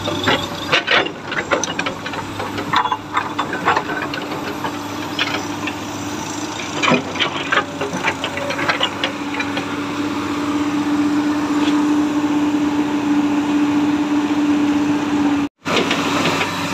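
Komatsu PC210 excavator's diesel engine running steadily, with a steady whine that grows stronger in the second half and scattered clanks and rattles in the first part.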